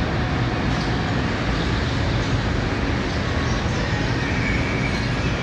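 Steady city street traffic rumble: a continuous, even low noise with no breaks.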